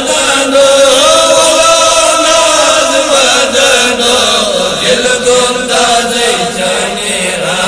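Men singing a Kashmiri naat together, a devotional chant in praise of the Prophet, on long held notes that glide slowly in pitch.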